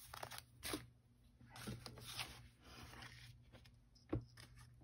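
Paper and cardstock pieces being handled: a few short rustles and scrapes as panels slide over each other on the cutting mat, then a light tap about four seconds in.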